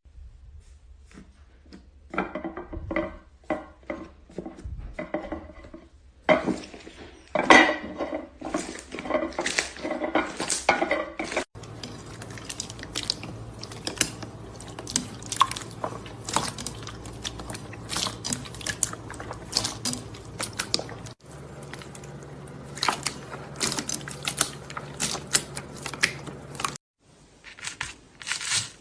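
Slime being squeezed, poked and kneaded by hand: sticky wet squishing with many small crackles and pops, in several separate clips that cut from one to the next.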